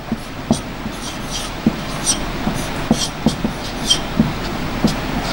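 Marker writing on a whiteboard: a quick, irregular string of short squeaks and taps as a word is written out.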